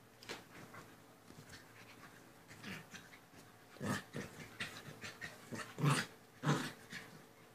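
Small dog making short vocal sounds while play-fighting with a kitten: a few brief bursts in the second half, the last two the loudest.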